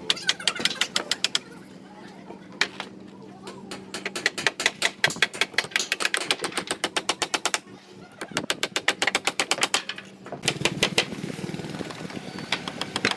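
Hammers driving nails into wooden roof formwork boards: quick runs of sharp knocks, several a second, over a steady low hum. About ten seconds in the hum grows louder while the knocking goes on.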